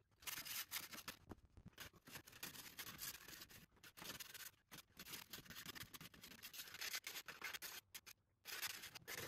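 A brush scrubbing the petrol-tank bay of a car to clear dirt: quiet, irregular scratching strokes with a couple of brief pauses.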